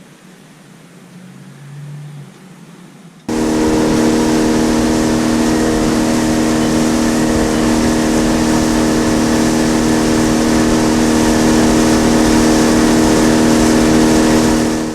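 Boat motor running steadily at a constant speed, cutting in abruptly about three seconds in, with a hiss of wind and water over it; it stops suddenly at the end.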